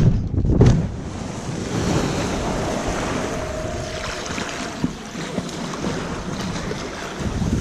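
Water rushing and churning around a small water-ride boat as it glides along a channel just after splashing down from its slide, with wind buffeting the microphone. A loud low rumble fades within the first second, leaving a steady wash of water noise.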